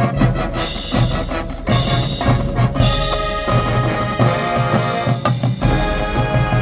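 Marching band playing: brass holding sustained chords over repeated drum hits and a deep bass.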